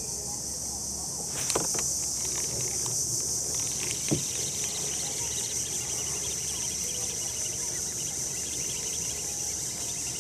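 Steady high-pitched chorus of insects shrilling, with two sharp knocks about one and a half and four seconds in.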